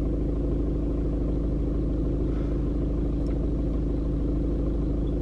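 A car running, heard from inside the cabin: a steady low engine hum with no change in pitch.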